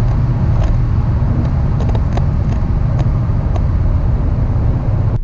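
In-cabin sound of a Volvo V60 T6 with its 2.0-litre four-cylinder engine, slowing from about 140 km/h just after a full-throttle run. A loud, steady low drone of engine and road noise.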